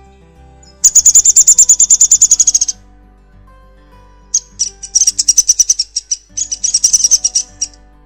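Downy woodpecker giving its whinny: a fast run of high, sharp notes lasting about two seconds, starting just under a second in, then a second, more broken run of the same notes a couple of seconds later.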